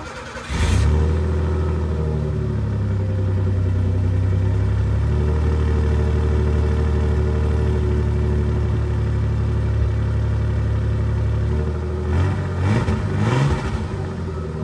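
1990 Ford Ranger's 2.9 L V6 running through its stock muffler, idling steadily. Near the end it is revved up briefly a couple of times and drops back to idle.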